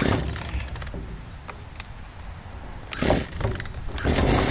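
Craftsman two-stroke chainsaw being pull-started: the recoil starter is yanked twice, cranking the engine in short rattling bursts, and about four seconds in the engine catches and runs steadily. The owner takes its hard starting for fuel starvation.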